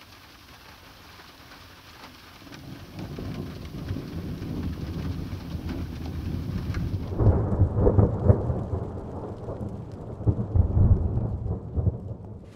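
Thunderstorm sound-effect recording: a light rain hiss with a distant thunder rumble building after about two seconds. About seven seconds in it switches abruptly to louder rolling thunder with sharp cracking peaks, and the rain hiss drops away.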